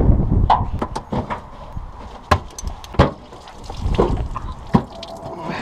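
A string of irregular sharp knocks and clacks, about a dozen, with a low rumble in the first second.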